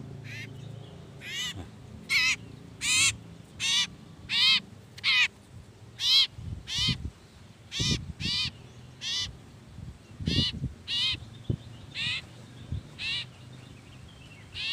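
Common iora held in the hand, giving a string of short, harsh distress calls, about one every 0.7 seconds.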